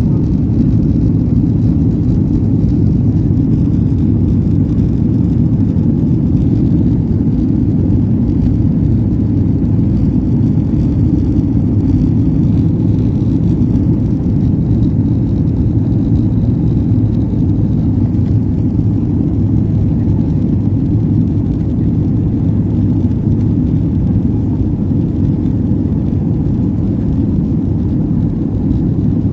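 Steady low rumble of jet engine and airflow noise inside an airliner's cabin, heard from a window seat as the plane descends on approach with its flaps extended.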